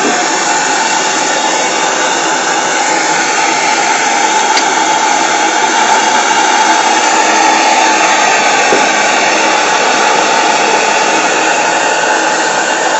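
Steady hissing rush from a running model steam plant, with the Saito BT1L boiler's burner firing and the PMR double-acting V-twin oscillating steam engine running under steam.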